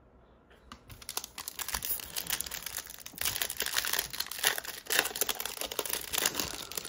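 Foil wrapper of a Panini Mosaic football card pack being torn open and crinkled by hand: a dense run of crackles starting about a second in and getting louder about three seconds in.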